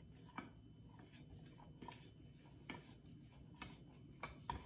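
A spoon stirring a liquid mix in a plastic measuring cup, giving faint irregular clicks as it knocks against the cup, roughly one every half second to second.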